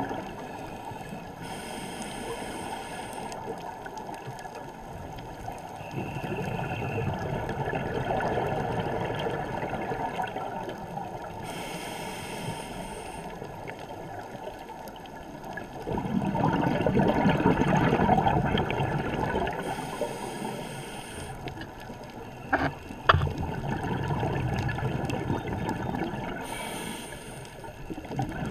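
Scuba breathing heard underwater: a hiss of inhaling through a regulator about every eight seconds, each followed a few seconds later by the low rumbling gurgle of exhaled bubbles. Two sharp knocks come close together about three-quarters of the way through.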